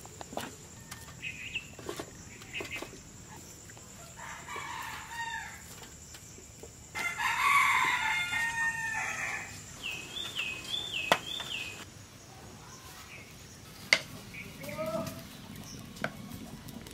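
A rooster crowing, a fainter crow about four seconds in and a louder one about seven seconds in, with a few short hen clucks near the end. A small bird gives a short repeated warbling call around ten seconds in.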